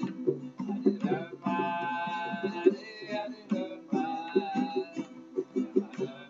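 Live acoustic music: a plucked string instrument keeps up a quick rhythmic pattern, with long held, slightly wavering melody notes above it.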